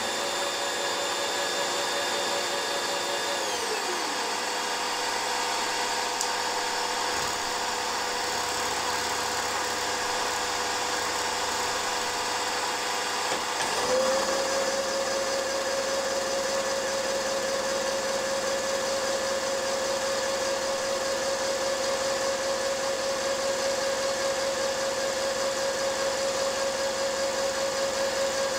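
Milling machine running with an end mill side-cutting a model engine's connecting-rod blank held in a vise: a steady machine whine with chip-cutting noise. The whine drops in pitch about four seconds in and climbs back with a brief louder knock about fourteen seconds in.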